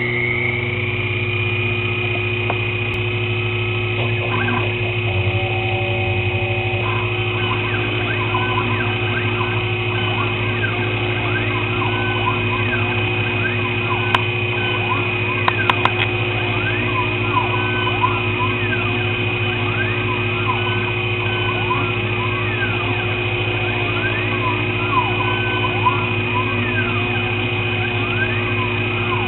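Sherline CNC mill running: the spindle whines up to speed in the first second and then holds a steady high whine over a low hum, while the axis motors give repeated rising-and-falling whines as the cutter moves through machinable wax. A few light clicks come in the middle.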